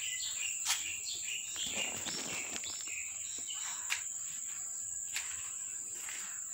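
Steady high-pitched insect chirring, like crickets, with a few short clicks.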